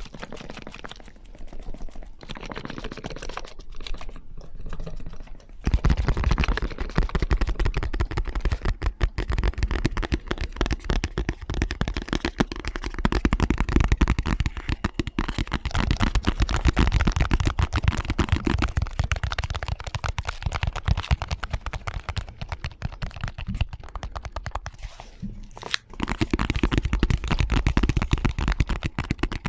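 Fast, dense tapping and clicking of fingers and fingernails on objects, several tapping sounds layered over one another. About six seconds in, a heavier tapping with a deep thud to each stroke comes in, and the mix shifts again near the end.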